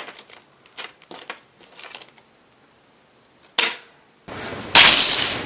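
Small plastic parts bags of replacement capacitors being handled: light clicks and rustles, then a sharp crackle and about a second of loud crinkling that cuts off abruptly near the end.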